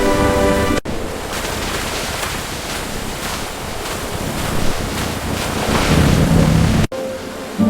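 Steady rushing of falling water, a waterfall ambience with slow surges, cut in suddenly after a brief snatch of music and cut off again shortly before the end.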